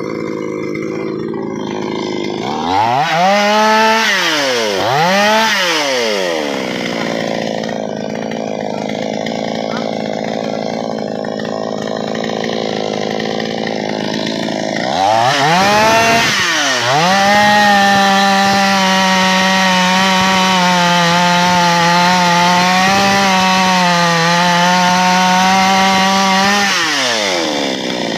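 Chainsaw engine blipped twice, falling back to a lower idle, then run up to full throttle and held for about ten seconds, its pitch dipping slightly as it works through wood, before dropping back near the end.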